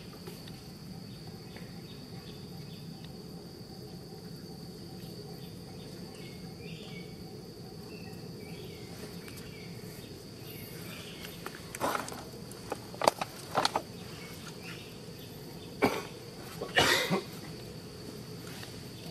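Steady outdoor insect drone, a constant high-pitched hum, over low background noise. In the second half it is broken by about five short, loud sounds, the loudest about two-thirds of the way in.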